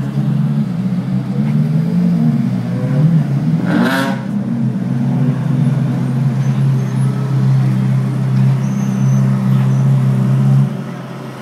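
Ferrari Challenge race car's V8 running at low paddock speed, its pitch wavering with light throttle for the first few seconds and then holding steady. There is a short sharp high sound about four seconds in, and the engine drops away near the end.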